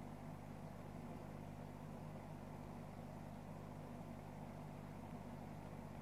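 Steady hum of aquarium equipment, with a low, even noise of bubbling water from the tank's aeration.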